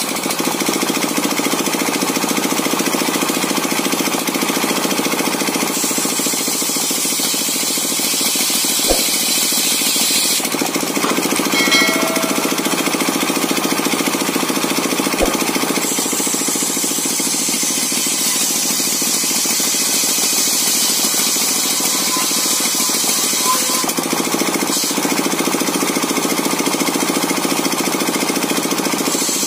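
Engine-driven circular sawmill (mesin serkel) running steadily with a fast, even knocking rhythm while sawing coconut wood. The high hiss swells and drops back in stretches, and there are two brief sharp knocks.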